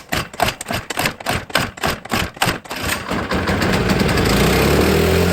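Snowblower's small engine sputtering with a string of sharp, irregular pops, then catching about three seconds in and running steadily. It is running on carb cleaner filled into the carburetor, which points to a fuel blockage in the carburetor after the ethanol gas sat in it.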